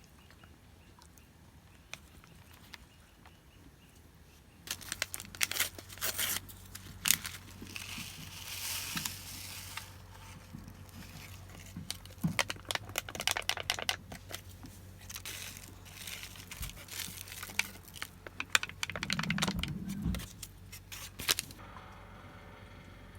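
Instant ochazuke seasoning packets being torn open and crinkled: a quiet start, then about fifteen seconds of sharp crinkling, tearing and rustling of packaging, easing off near the end.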